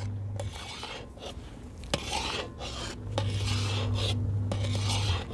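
Metal khurchna scraper stirring and scraping thickening carrot halwa against the bottom of a large kadhai, in repeated rasping strokes with short pauses.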